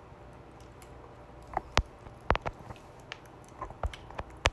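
Irregular sharp clicks and taps, about ten of them, the loudest about two seconds in and just before the end.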